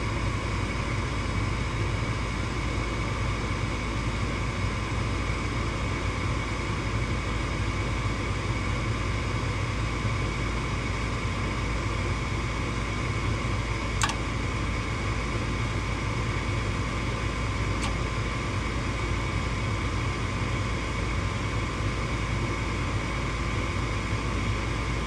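Gas furnace starting up on a heat call and running steadily, its motors giving an even hum with a faint steady whine. A single sharp click comes about halfway through.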